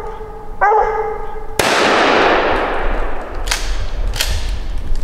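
A treeing hound barks once, then a single gunshot goes off at a treed squirrel and its echo fades away over the next few seconds. Two sharp clicks come near the end.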